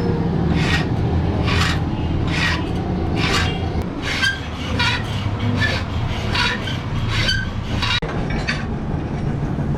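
Rhythmic hand scraping or rasping strokes, a little over one a second, over a steady low hum.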